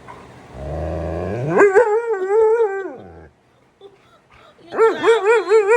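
A husky-malamute mix "talking": a low grumble that rises into a wavering, howl-like "woo-woo" of about a second and a half, falling at its end. It is followed near the end by a second wavering howl-like call, given in answer to its owner.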